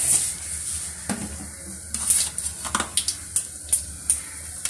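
Mustard seeds sizzling in hot oil in a stainless-steel kadai for a tempering, with sharp pops that come more often toward the end as the seeds start to splutter.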